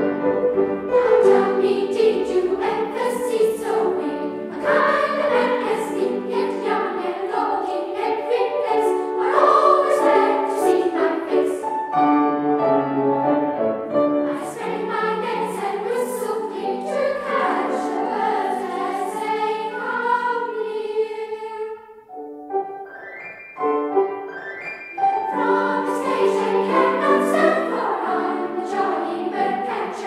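A girls' school choir singing in parts with keyboard accompaniment, heard on an old mono analogue tape recording. There is a short lull about three-quarters of the way through, then the choir comes back in.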